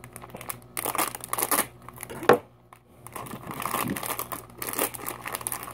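Foil blind-bag packet crinkling as it is handled and torn open by hand, with one sharper, louder sound a little over two seconds in.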